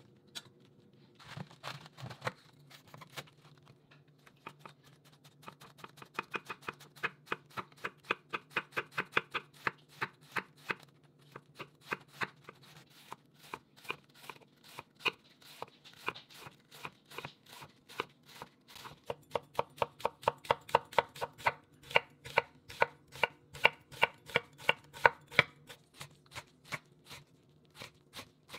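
A chef's knife is cutting through red cabbage onto a wooden cutting board in quick, steady strokes, about three to four a second, shredding it. Near the end the same rapid chopping dices an onion.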